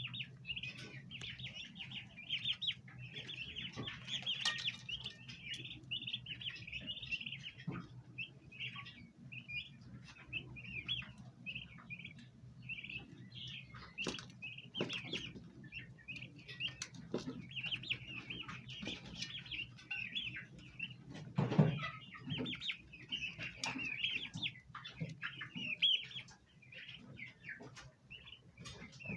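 A group of bronze turkey poults chirping, with many short high peeps overlapping throughout. There is a steady low hum underneath and a single loud thump about two-thirds of the way through.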